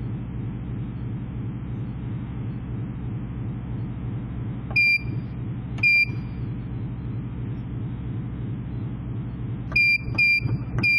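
Key-press beeps from an Arojet MP-258 inkjet printer's control keypad: two short high beeps about a second apart midway, then three quicker beeps near the end, over a steady low hum.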